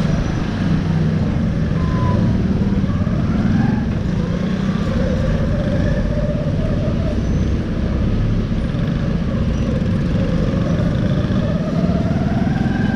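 Small commuter motorcycle's engine running while riding, its pitch climbing several times as it accelerates and then dropping back.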